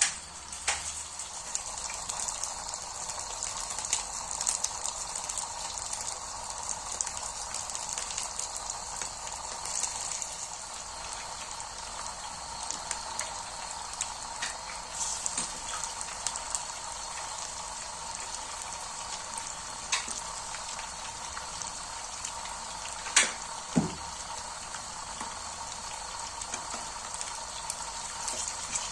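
Cotlet patties frying in oil, a steady sizzle with constant small crackles and pops. Two sharp knocks, likely a utensil against the pan, come about two-thirds of the way in.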